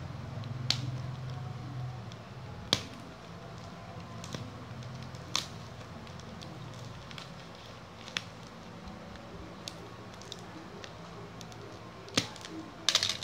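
A box cutter slicing open a parcel's plastic wrapping, the plastic crinkling, with sharp snaps and clicks every two or three seconds and a quick cluster of clicks near the end.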